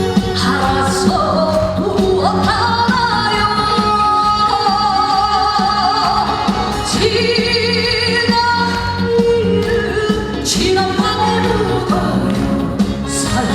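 Live trot song: a band playing with a singing melody line.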